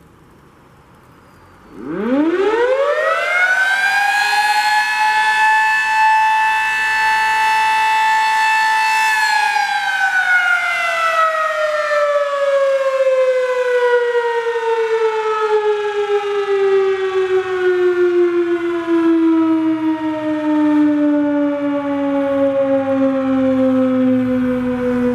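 Sterling Model M single-tone fire siren (16/16 ports) sounding a short alert cycle for its daily noon test. It winds up quickly about two seconds in to a steady wail, holds for about five seconds, then slowly winds down, its pitch falling to the end.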